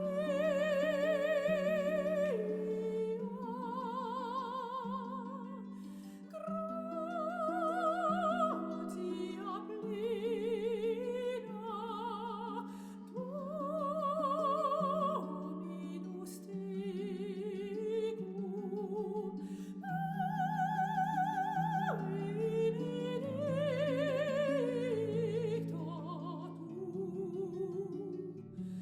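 Slow classical-style background music: a long-held melody with strong vibrato over sustained low chords.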